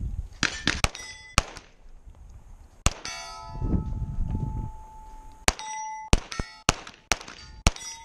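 A string of pistol shots fired at steel plate targets, about ten shots at uneven spacing with a quick run near the end. Hits answer with the metallic clang and ring of the steel plates, some ringing on for a second or more.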